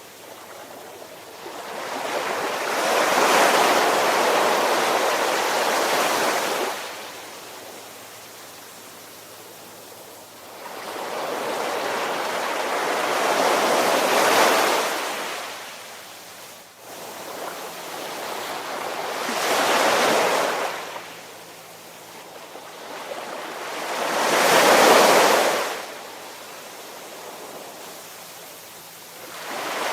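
Ocean waves washing in and falling back in slow surges, four in all, each swelling over a few seconds and then dropping away to a quieter hiss.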